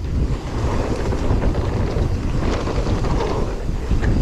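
Wind buffeting the microphone and tyres rumbling over a dirt trail as a mountain bike rides downhill, with short rattles and knocks from bumps.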